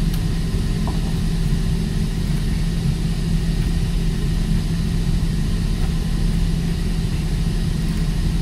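Steady drone of running machinery: a loud, unbroken low hum with a constant tone, unchanging throughout.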